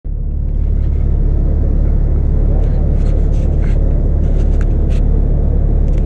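Steady low engine rumble heard inside a vehicle's cabin, with a few faint light clicks or rattles through the middle.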